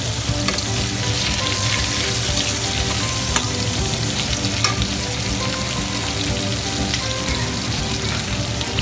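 Prawns, whole cumin seeds and dried red chillies sizzling and crackling steadily in hot oil in a kadai, stirred with a metal spatula that clicks against the pan now and then.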